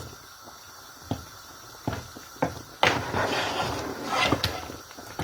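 Kitchen pot-and-utensil handling while cooking. A few light knocks come first, then from about three seconds in a stretch of scraping noise with more knocks.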